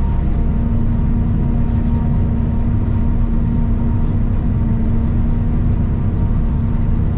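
Steady drone of a John Deere self-propelled forage harvester at work chopping corn, heard from inside the cab: deep engine and machine rumble with a constant hum held throughout.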